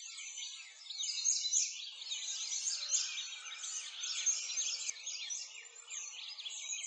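Many small birds chirping and twittering at once, a dense, steady chorus of quick high chirps.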